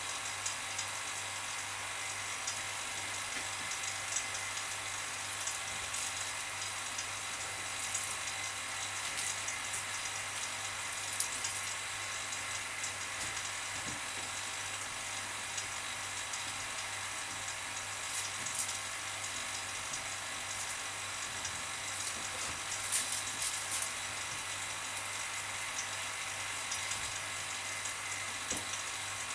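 Steady hiss with a low hum from a vacuum pump drawing down a bagged carbon-fibre layup, with scattered light crackles of the plastic bagging film as it is pressed down by hand.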